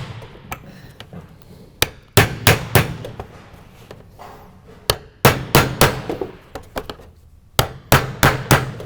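Hammer striking a punch to knock pilot holes through sheet-metal roofing where a screw won't easily go through, in quick groups of three or four sharp blows with short pauses between.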